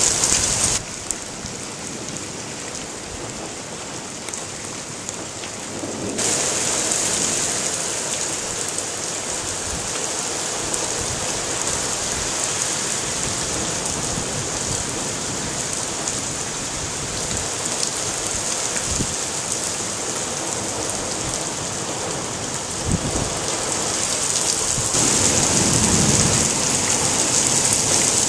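Heavy rain pouring down onto paving and a garden, a steady hiss throughout. Thunder rumbles in the last few seconds.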